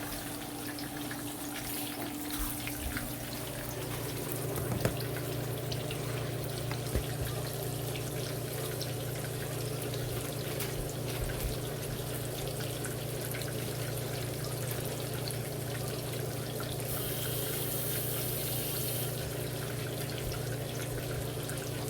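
Marinated milkfish frying in hot oil in a pan: a steady sizzle with scattered small crackles and pops, over a low steady hum.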